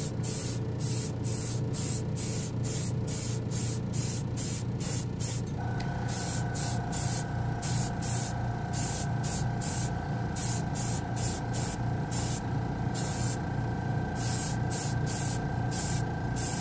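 Gravity-feed airbrush spraying lacquer in short hissing bursts, about two a second, with a few pauses, as the trigger is pulsed. Under it runs the steady low hum of the spray booth fan, and a steady whine joins about six seconds in.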